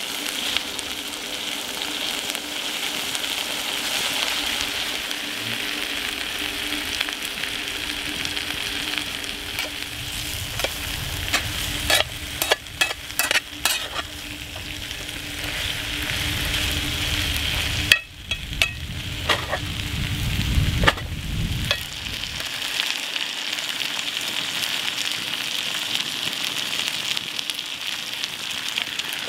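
Spicy chicken and cabbage (dakgalbi) sizzling steadily in a cast-iron skillet. Partway through, a spatula stirs it and knocks and scrapes against the pan in a run of sharp clicks.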